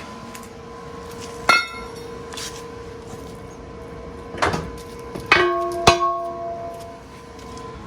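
Steel parts being handled and knocked together on a steel fabrication table: four sharp metallic clanks, two of them ringing on briefly, over a steady hum.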